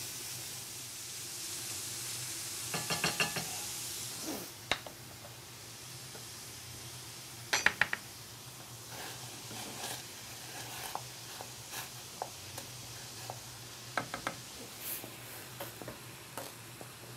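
Bacon lardons sizzling in oil in a stainless steel frying pan, with metal clinks and knocks of utensils against the pans. The sizzle is strongest in the first few seconds; a ringing clatter comes about three seconds in and the sharpest knocks near eight seconds.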